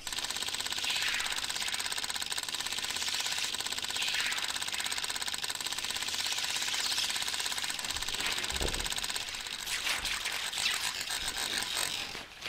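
Sound-effect track of fast, steady mechanical chattering, like a rapidly running counter or data readout, with a thin steady electronic tone underneath. Near the end it turns uneven, with louder bursts.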